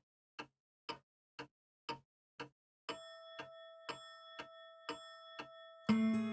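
Clock ticking steadily, about two ticks a second. A held tone comes in under the ticks about halfway through, and guitar music starts near the end.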